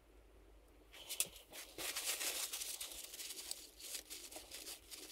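Blue paper towel rustling and crinkling as it is bunched up and wiped around the inside of a bicycle hub, starting about a second in.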